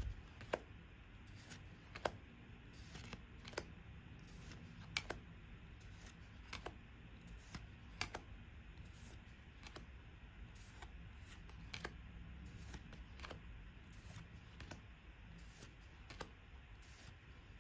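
Magic: The Gathering trading cards being handled one at a time, each card sliding off the stack with a faint soft click about every second or so, over a low room hum.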